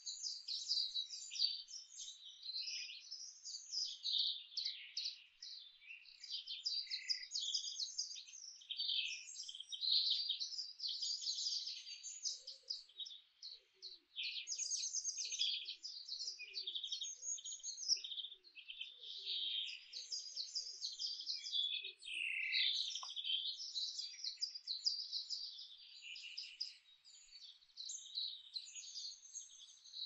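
A chorus of several songbirds singing at once, dense overlapping high chirps and trills with hardly a pause. About halfway through, a fainter series of short low calls runs beneath them for about ten seconds.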